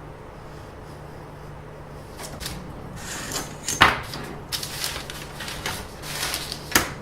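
Handling noises: irregular rustling and scraping begin about two seconds in, with two sharp clacks, one in the middle and a louder-sounding one near the end, over a faint steady hum.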